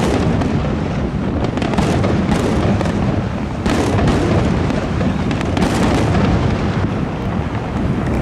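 Aerial fireworks display: shell bursts overlapping into a continuous booming rumble, with sharper bangs every second or so and fine crackling from the glittering stars.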